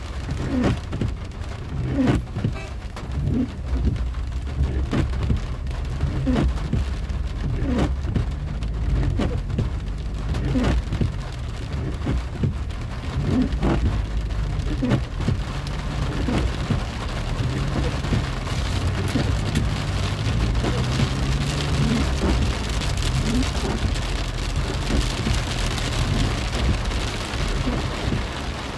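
Rain drumming on a car's roof and windscreen, heard from inside the cabin: many separate drop taps over a steady low rumble. The hiss of the rain grows heavier about two-thirds of the way through.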